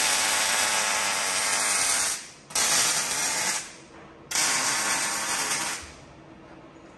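MIG welder arc laying weld passes on a steel diff housing: three runs of steady crackling sizzle, each one to three seconds long, with short breaks between as the trigger is released.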